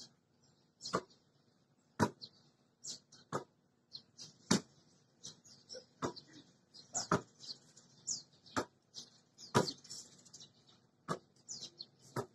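Basketball slapping into the hands as it is caught during two-handed chest passes back and forth, a sharp slap roughly every second or so. Birds chirp between the catches.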